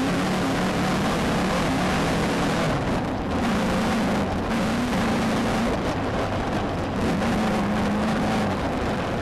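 Inside a Beetle-based off-road race car at speed: the engine is running hard, its note wavering up and down slightly, under a dense wash of wind and road noise.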